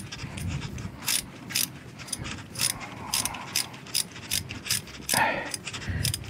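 Ratchet wrench clicking in short strokes, a few clicks a second, as the oil filter cover bolts on a Suzuki GSX-S125 engine case are tightened. A short rustle about five seconds in.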